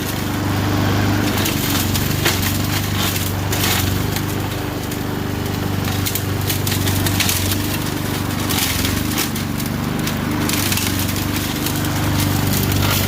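A small engine runs steadily while woody brush cracks and splinters again and again, typical of cut branches being chewed up by a mower.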